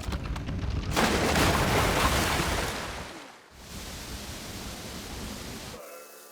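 A loud rushing noise that swells about a second in and dies away, then a quieter steady rush that cuts off suddenly near the end, where a faint tune begins.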